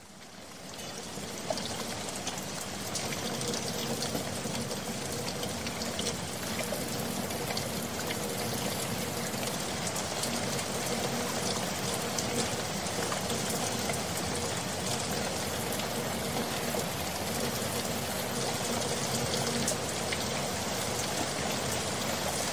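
Steady rushing water with many small scattered drips, like falling rain, fading in over the first two seconds and then holding even.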